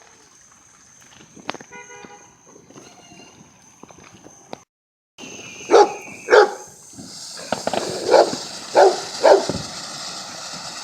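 A dog barking five times, two barks then three, over a steady hiss. Before that there are faint scattered pops and a brief horn-like tone.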